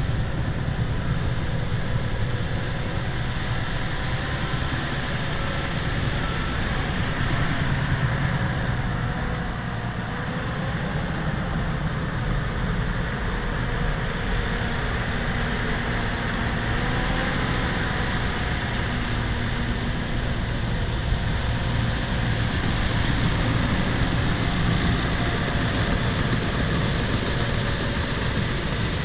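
Bulldozer's diesel engine running steadily as the machine works, with a slight dip in level about ten seconds in.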